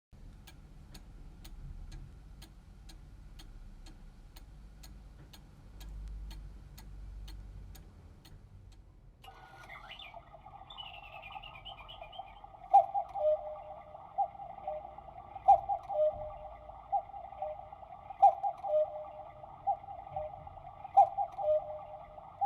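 Quartz Black Forest cuckoo clock ticking about twice a second. About nine seconds in, its electronic chime starts and plays a recorded cuckoo call, a higher note then a lower one, repeating about every three seconds over a steady background sound.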